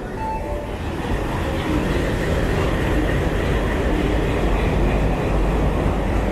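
Diesel locomotives pulling a train into the platform, passing close by: the engines and wheels make a steady low rumble that grows louder about a second and a half in as the locomotives come alongside.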